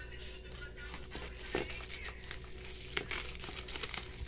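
Bubble wrap crinkling and crackling irregularly as it is cut with scissors and pulled open by hand.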